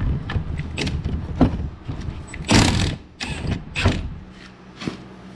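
Cordless impact wrench with a 16 mm socket hammering on the nut of a snowmobile's brake rotor shaft to break it loose. It goes in three or four bursts of rapid rattling, the last one short, near the end.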